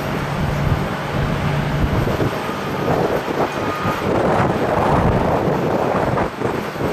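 Jet airliner engines running at taxi power close by: a steady rumble and rush that grows a little louder in the second half.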